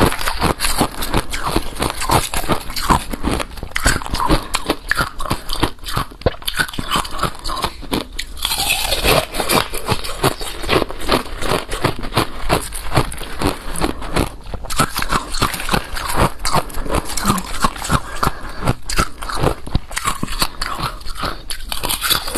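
Close-miked chewing of balloon ice: rapid, continuous crunching and cracking as the ice is bitten and ground between the teeth, a little louder about nine seconds in.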